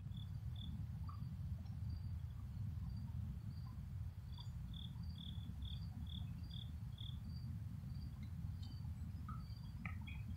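Crickets chirping, short chirps repeated at an even pace, over a steady low rumble. A few brief chirps of another kind come near the end.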